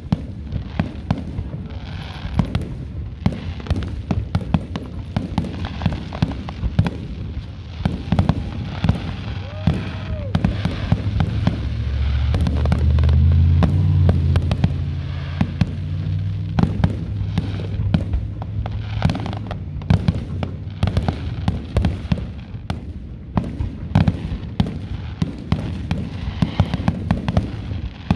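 Aerial fireworks shells bursting in quick succession, a steady stream of bangs and crackling, with a heavier, louder barrage rumbling about halfway through.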